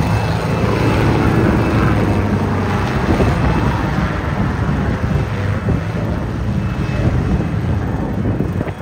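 Small helicopter's engine and rotor running at takeoff power as it lifts off and climbs away overhead: a loud, steady low drone that eases slightly near the end. Wind buffets the microphone.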